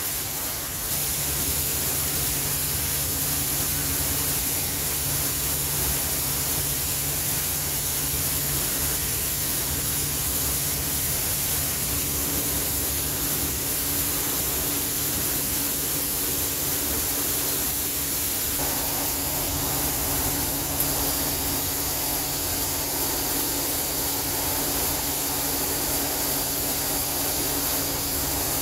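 A 10-ton recirculating paddy dryer running, its hot-air blower fans and LPG gas burners making a steady rushing hiss over a low hum.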